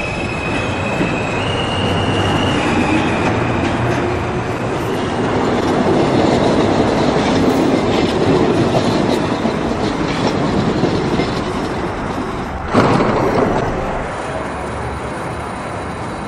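New York City subway train running along the track, swelling louder in the middle, with a sudden loud burst of noise about thirteen seconds in before it settles lower.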